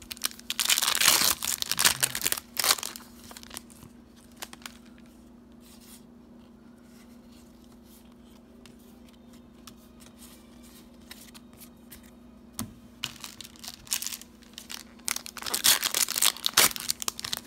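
Foil booster-pack wrapper torn open with a loud rip in the first couple of seconds, then a quiet pause, then foil crinkling and rustling again for the last few seconds.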